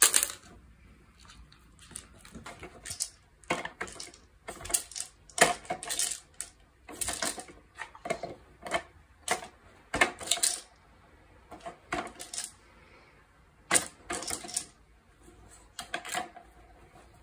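Hard plastic cups of a spinning-cup dog treat puzzle clattering and knocking as a dog nudges and tips them, with treats dropping out and the dog chomping them. The sound comes as irregular clusters of sharp clicks and knocks.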